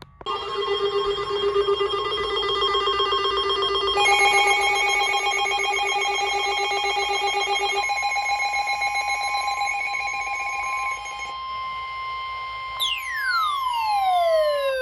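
A goofy electronic beat of synthesized tones: several steady, rapidly pulsing pitches sounding together, switching to a new set of notes about four seconds in and again around eight and eleven seconds, then a cluster of tones sliding steeply down in pitch near the end.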